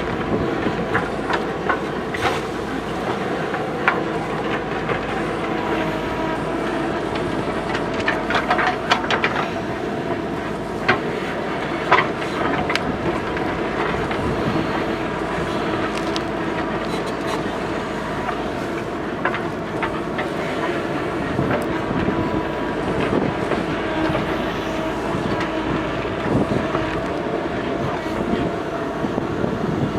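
JCB backhoe loader's diesel engine running steadily under working load, with scattered sharp metallic knocks and clanks, the loudest about twelve seconds in.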